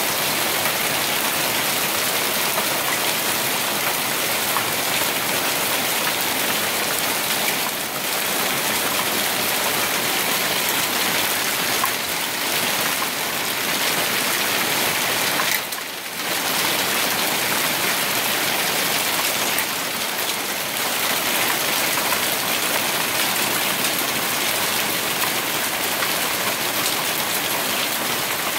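Hailstorm: a dense, steady clatter of hailstones pelting the deck and foliage. It dips briefly about halfway through.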